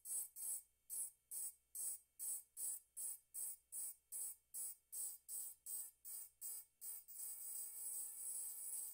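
Pen-style rotary engraver grinding into a glass, a thin high whine with hiss in short strokes about two to three a second, then one longer unbroken cut for the last two seconds or so.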